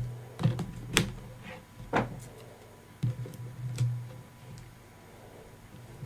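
A handful of sharp plastic clicks and taps as the plastic housing of a Samsung Galaxy S4 is fitted and pressed into its clips, most of them in the first four seconds, over a low steady hum.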